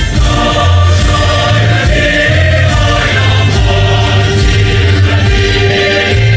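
Choir singing with instrumental accompaniment, loud and steady, with a heavy bass line.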